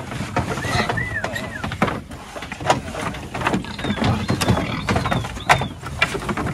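Irregular knocking and clattering with a low rumble, typical of pigs' trotters on a hard floor as F1 gilts are moved, with a few short high chirps.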